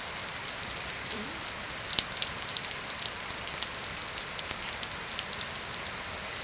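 Heavy rain falling steadily, with many scattered sharp taps of drops striking a surface; one louder tap about two seconds in.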